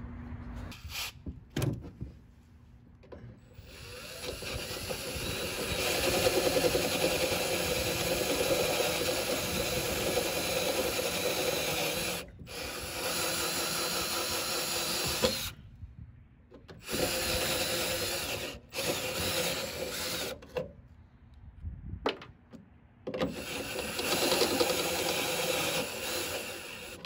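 Cordless drill with a step bit drilling out a half-installed rivnut from the pickup's steel bed wall, running in about five spells with short stops in between. A few short clicks come first, and the drill starts about four seconds in.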